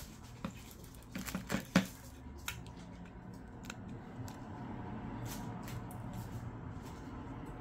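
A quick cluster of sharp clicks and taps a second or so in, the loudest just before two seconds, then scattered light ticks: small smartphone parts and tools being handled during reassembly.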